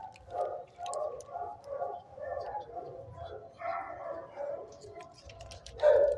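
Shelter dogs barking and yelping in the kennel room, short calls about two or three a second, with a louder bark near the end.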